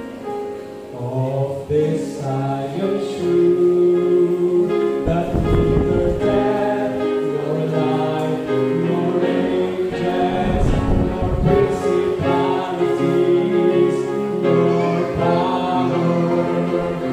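A man singing a gospel solo with upright piano accompaniment.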